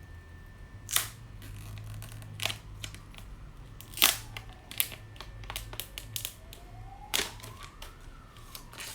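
Packaging being handled and opened: sharp clicks and taps, with tearing and rustling. Near the end a faint tone rises and then falls.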